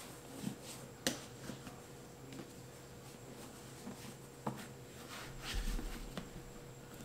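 Faint handling of a leather work boot as it is turned over in the hands, with soft rubbing and a few light clicks.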